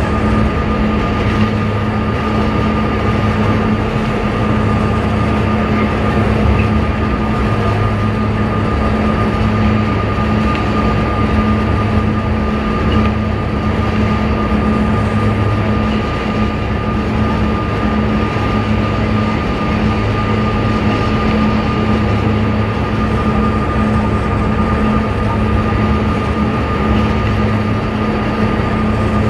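A fast ferry's engines droning steadily, a low hum with a thin higher whine, over the rush of its churning wake.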